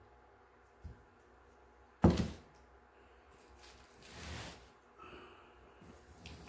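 A light knock, then a sharp metallic clunk about two seconds in as a stainless steel soap pot is set down. A few seconds later comes a longer scraping slide as a filled soap mold is pushed along the counter into place.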